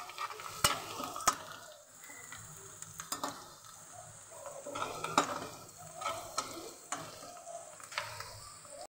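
Chopped onions sizzling in hot oil in a black kadhai as they fry to light brown, stirred with a perforated steel spoon that scrapes and clinks against the pan now and then.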